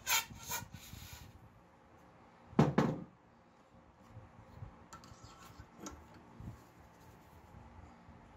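Metal hand tools clicking and knocking against a small lamp part held in a bench vise: a quick run of clicks at the start, one louder clunk a little before three seconds in, then a few light clicks.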